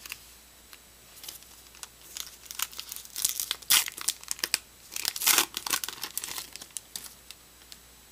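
Wrapper of a 2012 Topps Heritage baseball card pack being torn open and crinkled by hand: a run of crackles and rips, loudest about halfway through.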